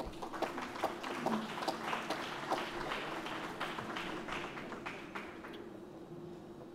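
Scattered audience applause, many irregular hand claps, dying away about five seconds in.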